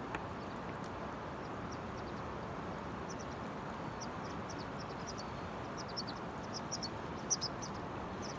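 Steady rushing of flowing river water, with quick high chirps of small birds that begin about three seconds in and grow thicker, the loudest near the end.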